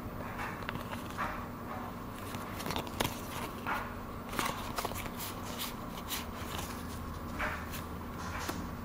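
Pokémon trading cards handled and flipped through: a run of short flicks and slides of card against card, irregular, a few every second.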